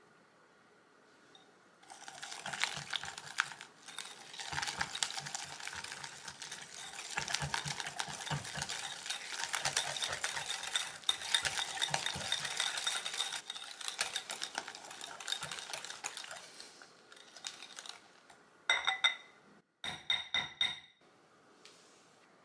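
Wire balloon whisk beating beaten egg into creamed butter and sugar in a glass bowl, starting about two seconds in: a fast, dense clicking and scraping of the wires against the glass. Near the end the whisking stops and a few sharp, ringing taps of the whisk on the bowl follow.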